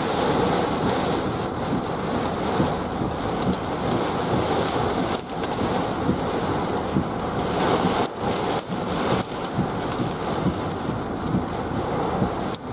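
Heavy rain pelting a vehicle's windshield and roof, heard from inside the cab: a dense, steady hiss with a few brief dips.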